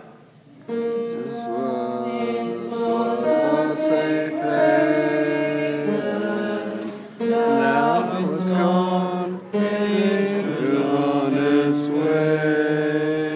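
Men's vocal group singing in close harmony, holding long chords, from about a second in. The singing breaks briefly twice between phrases.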